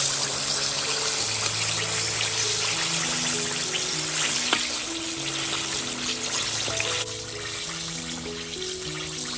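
Background music with a simple melody over the loud, even sizzle of breaded chicken legs deep-frying in hot oil. The sizzle drops sharply about seven seconds in, leaving the music with a fainter hiss.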